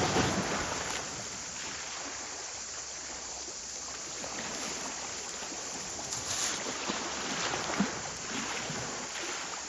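Sea waves washing onto the shore, a steady rush that is loudest at the start and surges again about six seconds in, with one sharp click near the end.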